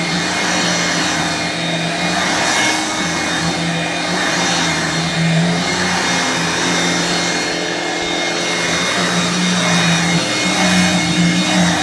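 Vintage 1985 Hoover Brush Vac hand vacuum running steadily: a motor hum under a loud airflow hiss, the hiss swelling and easing slightly about every second or so as the nozzle is worked over the surface.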